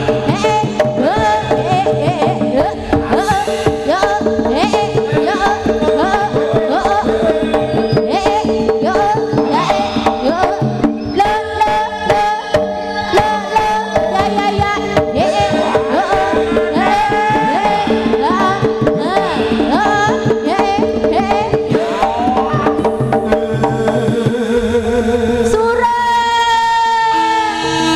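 Live Javanese jaranan/bantengan ensemble music: rapid hand-drum strokes with a held note under them and a wailing, bending melody over the top.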